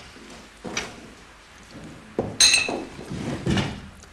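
Cutlery and tableware clinking at a dinner table: a handful of separate knocks and clinks, the loudest a ringing clink about two and a half seconds in.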